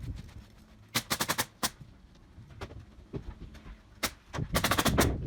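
Nails being driven into framing lumber: sharp strikes in quick bursts of several, about a second in and again around four to five seconds in.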